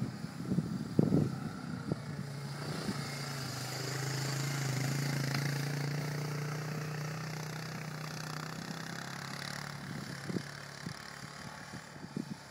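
Quad bike engine running steadily as it pulls a sled across snow, getting louder as it passes close about five seconds in and then fading. A few short knocks near the start and near the end.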